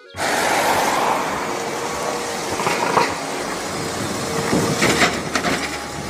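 A red double-decker city bus driving past, its engine and road noise mixed with street sound and a few sharp clicks.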